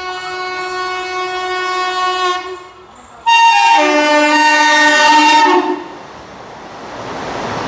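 Indian Railways train horns: a long steady horn that fades out about two and a half seconds in, then a louder multi-note chord horn for about two and a half seconds, followed by a rising rush of train noise.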